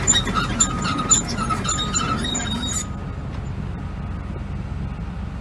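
Tracked excavator travelling: a steady low engine rumble with repeated high squeals and clanks from the steel tracks, which stop abruptly about three seconds in, leaving the engine running.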